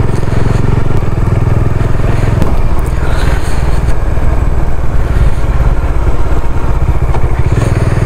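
Bajaj Dominar 400's single-cylinder engine running as the motorcycle rides along, with the engine note shifting about two and a half seconds in.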